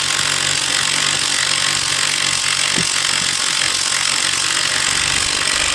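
A power tool running steadily at work on the engine's bolts: a loud, even hiss with a faint low hum under it.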